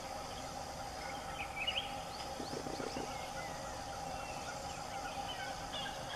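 Forest ambience: small birds chirping with quick rising and falling notes over a steady insect drone, and a short, rapid run of low clucks about two and a half seconds in.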